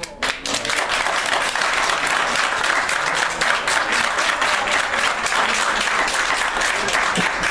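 Large crowd applauding: dense, sustained clapping that starts suddenly and holds steady throughout.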